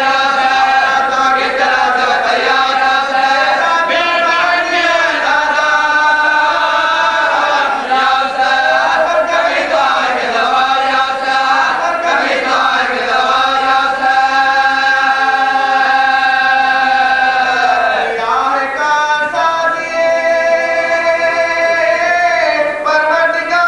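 A group of men chanting an Urdu marsiya together, with no instruments: a lead reciter and backing voices in unison, holding long drawn-out notes that bend slowly in pitch.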